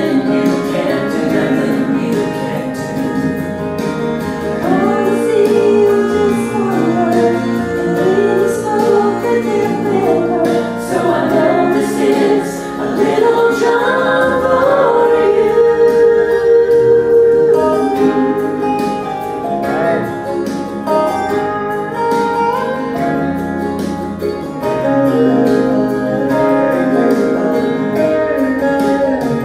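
A man and a woman singing a gospel song as a duet into microphones, with instrumental accompaniment.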